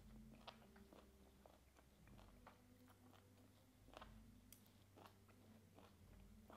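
Faint close-miked eating sounds: chewing and sucking in strands of raw beef and banana flower salad, with scattered small wet clicks and crackles of the mouth and food, several a second.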